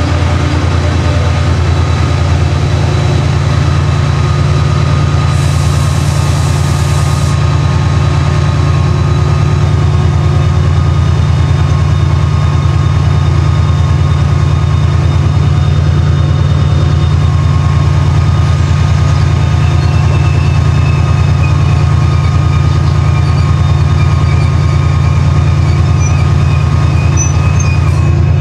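Class 68 diesel locomotive's Caterpillar V16 engine running at a steady, loud, low hum, heard from aboard the train along with the train's running noise. A short hiss comes about six seconds in, and a faint high squeal joins from about twenty seconds in.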